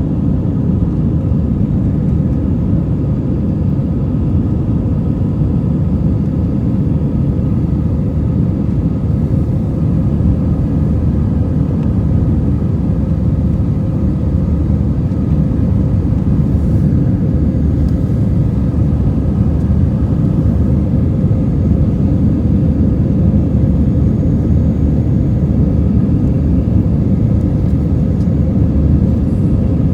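Steady jet engine and airflow rumble heard inside the cabin of an Airbus A319, with faint steady tones above the rumble.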